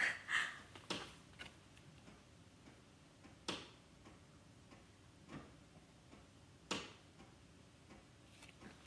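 Faint, scattered taps and clicks of a thick cardboard board book being handled and held up open.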